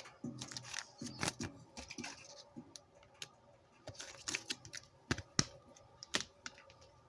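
Football trading cards being handled and flipped through in the hands: an irregular run of sharp clicks and taps of card stock, a few louder snaps near the middle and end.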